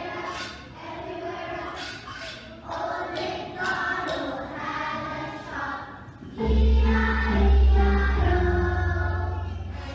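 Children's choir singing together. About six and a half seconds in, a loud, deep sustained sound comes in under the voices and steps up in pitch once.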